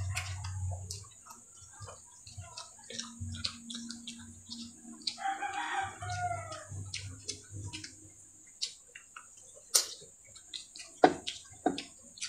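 Close mouth sounds of eating by hand: chewing, lip smacks and sharp clicks scattered throughout, the loudest near the end. About five seconds in, a rooster crows once in the background, a call of about a second and a half that drops in pitch at its end.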